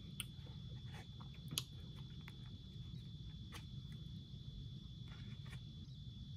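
Scattered small crisp clicks and crackles of crackers being broken by hand and a fork working on a paper plate, the sharpest click about a second and a half in, over a steady low room hum and a faint high whine.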